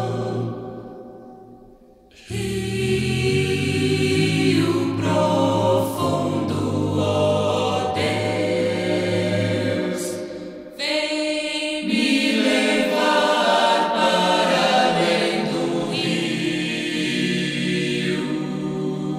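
Choir singing a slow gospel hymn in long held chords. The sound fades out early on and the voices come back in a little over two seconds in, with another brief drop about ten seconds in.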